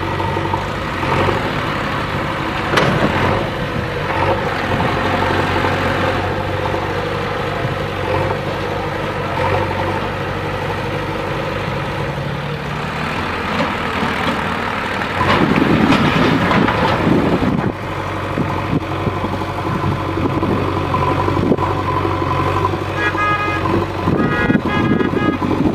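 Diesel engine of a JCB 3DX backhoe loader running steadily under work, louder and rougher for a couple of seconds in the middle. Near the end comes a quick series of short high beeps or toots.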